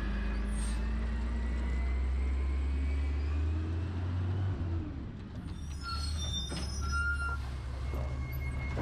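Garbage truck's diesel engine running with a steady low rumble that shifts about halfway through. A few short high squeals come around two thirds of the way in.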